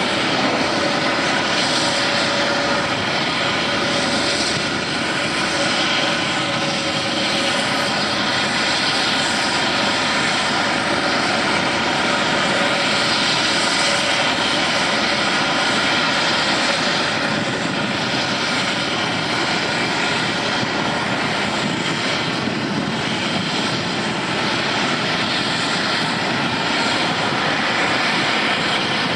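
Steady mechanical drone of a sand compaction pile vessel's machinery running while it works, with faint steady tones in the noise and no sudden knocks.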